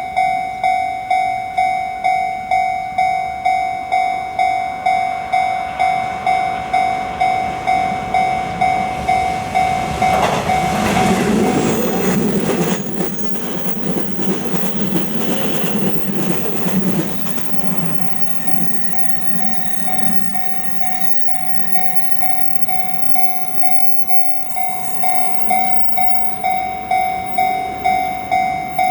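Japanese level crossing alarm bell ringing in a steady, repeated kan-kan. A train passes over the crossing in the middle, its wheels and running noise drowning out the bell for several seconds before it rings on again.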